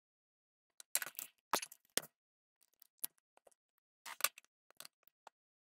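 Short, scattered clicks and scrapes of paper instant lottery scratch tickets being handled and scratched, coming in small clusters about a second in, around two seconds and a little after four seconds.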